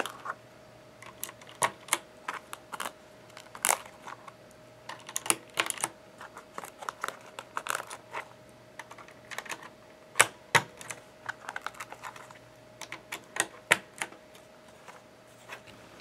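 Plastic keycaps being pushed onto the Cherry MX switches of a CM Storm Quickfire TK mechanical keyboard's number pad: a run of irregular sharp plastic clicks and clacks.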